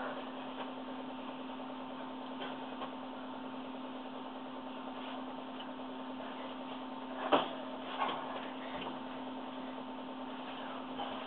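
Steady low electrical hum over a faint hiss of room noise, broken by one sharp knock about seven seconds in and a softer one just after.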